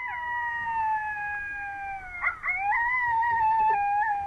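Coyote howls: long, drawn-out calls from more than one voice overlapping, each held and slowly falling in pitch, breaking into a wavering yodel about two seconds in.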